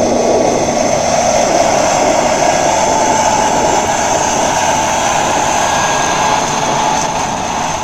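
Case IH Magnum tractor running under load as it pulls a drag-hose manure application toolbar past close by, a loud steady engine-and-machinery noise that eases slightly near the end as it moves away.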